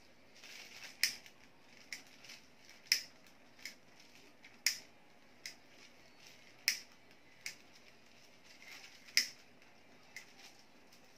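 Kite paper (papel de hapon) crinkling under the hands as the sail is handled at a corner of the bamboo frame: about a dozen short, sharp crackles at irregular intervals, a few of them louder than the rest.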